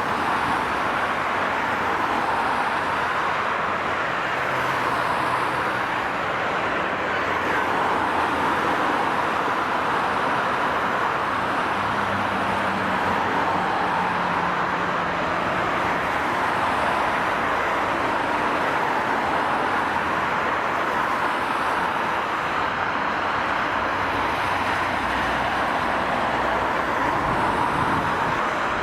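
CFM56-7B jet engines of a taxiing Boeing 737-800 running at low thrust: a steady rushing noise that holds an even level throughout.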